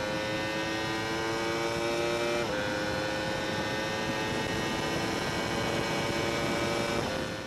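Honda CBR1000RR's inline-four engine pulling hard at full throttle over heavy wind rush, its pitch climbing steadily toward top speed. It upshifts into fifth about two and a half seconds in, with a short drop in pitch, then climbs again. The sound fades out near the end.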